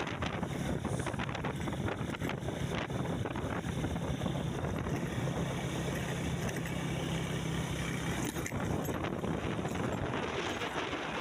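Motor vehicle driving, its engine a steady hum that drops away about eight seconds in, with wind noise and frequent small rattles and knocks.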